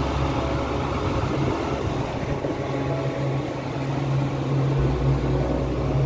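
Ceiling-concealed ducted air-conditioning unit and its supply blowers running, heard from inside the plenum box as a steady low hum of fan and rushing air.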